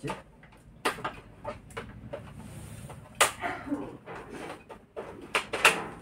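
Clicks and knocks as a wall socket switch is turned off and the microwave's three-pin plug is pulled out of its socket, the loudest clicks about three seconds in and near the end.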